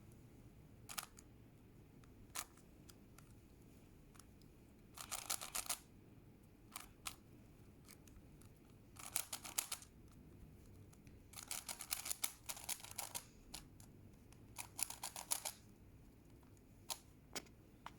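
Puzzle cube being turned by hand in the last moves of a solve: faint single clicks, and four quick runs of rapid clicking as layers are twisted in fast sequences.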